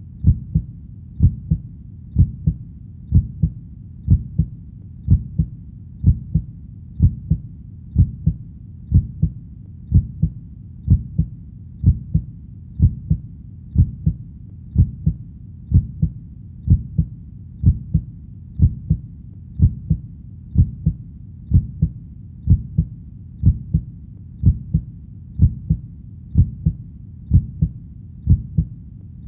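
Human heartbeat: a steady lub-dub of low, soft double thumps at about one beat a second, over a faint low rumble between the beats.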